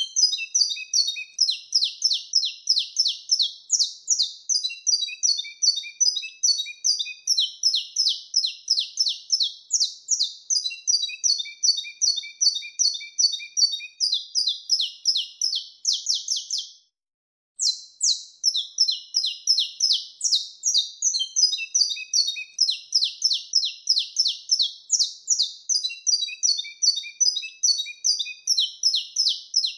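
Saffron finch (canário-da-terra) singing the wild-type 'mateiro' song: a long, unbroken run of sharp, high, rapidly repeated notes, now and then dropping into a series of lower notes. The song stops for under a second about seventeen seconds in, then carries on.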